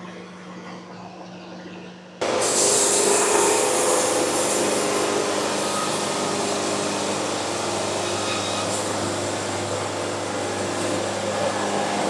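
A low hum, then about two seconds in a machine starts up abruptly: a loud, steady rushing noise with a low drone underneath.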